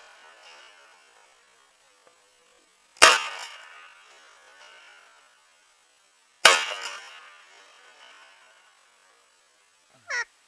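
Two shotgun shots about three and a half seconds apart, each sharp and followed by a trailing echo that fades over a second or so. Near the end, two short duck quacks.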